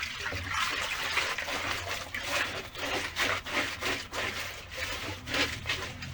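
Water splashing and trickling in quick, irregular bursts, over a low steady hum.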